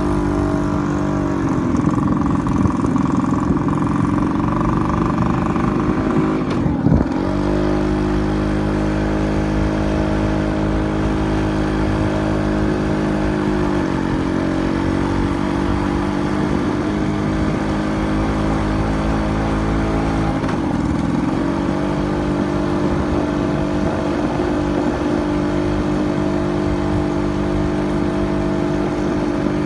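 A road vehicle's engine running steadily as it travels, heard from on board, its pitch dipping and climbing back again about four times.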